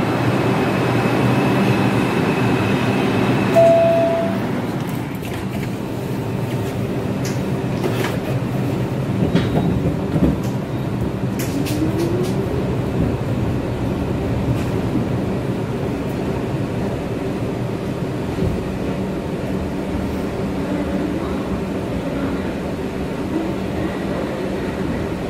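New York City subway 3 train heard from inside the car as it pulls out of a station and runs along the platform: a steady rumble of motors and wheels. There is a short knock about three and a half seconds in, and a scatter of sharp clicks from the rails as it gathers speed.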